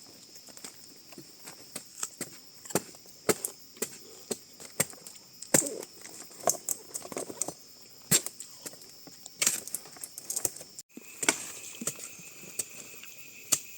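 Irregular sharp knocks and cracks, a few every second, over insects droning steadily at a high pitch; about eleven seconds in the drone cuts off and a lower steady insect tone takes over.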